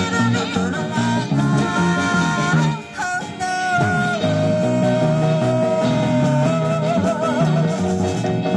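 Live band music: a woman singing into a microphone over drums, electric guitar and bass. There is a brief break about three seconds in, then one long held note through the middle.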